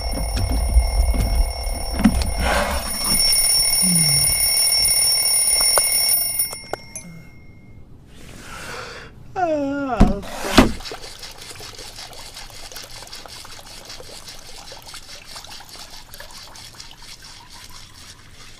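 Cartoon alarm clock ringing steadily, then cutting off about six seconds in. Later comes a wobbling falling tone with two sharp hits, then a quieter steady hiss.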